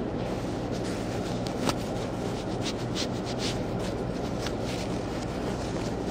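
Soft rustling and a few light ticks as a hand plays with a cat's paws against its fur and the cushion, the sharpest tick about a second and a half in and a short cluster about three seconds in, over a steady low background hum.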